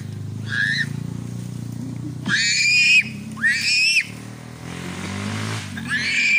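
A young child's high-pitched squeals while clinging to a bamboo pole: five short cries, each rising sharply then held briefly, over a steady low hum.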